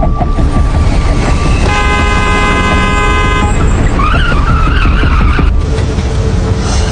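A car horn blown in one long blast of nearly two seconds, starting about two seconds in, over a loud, steady low rumble of traffic or road noise.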